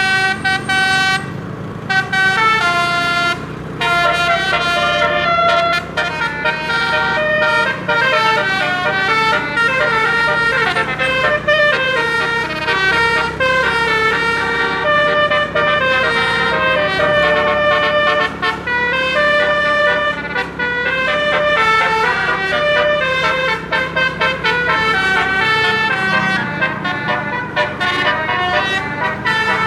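Bus's 12-note telolet air horn playing a fast, unbroken melody of rapidly changing notes, with the bus engine humming underneath.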